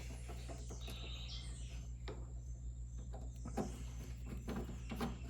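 Faint, scattered clicks and taps of plastic parts and screws being handled during reassembly, over a steady low hum. There is a brief high chirp about a second in.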